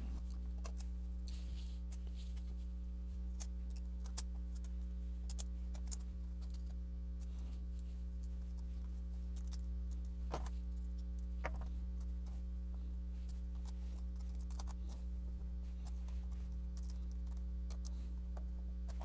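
Faint scattered clicks and taps of small screws, a screwdriver and plastic laptop parts being handled during reassembly of a Chromebook's trackpad area, over a steady low hum.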